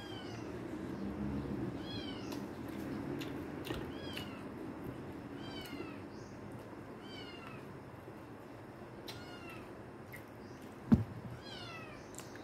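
An animal calling repeatedly in short, high cries that fall in pitch, one every second or two. A single sharp knock about eleven seconds in is the loudest sound.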